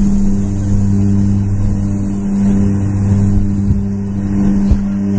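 Single-engine light aircraft's engine and propeller running steadily at high power during a takeoff roll on a rough dirt airstrip, heard from the cockpit. A couple of low thumps come near the end as the wheels hit bumps.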